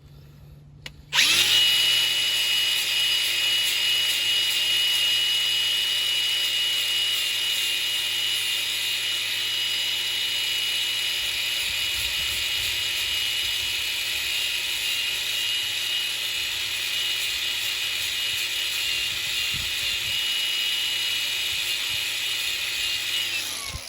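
Electric power sander running steadily with a high whine, buffing the rubber of a tire sidewall around a cut to prepare it for a patch. It starts about a second in and winds down near the end.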